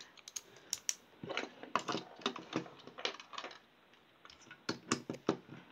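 Screws being driven back into a small plastic night-light casing with a hand screwdriver: a run of irregular light clicks and ticks, with a brief pause partway through.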